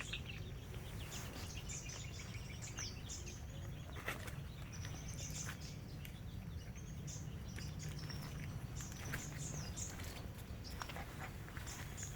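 Birds chirping in short repeated calls over a steady low background rumble, with a few sharp knocks, the clearest about four seconds in.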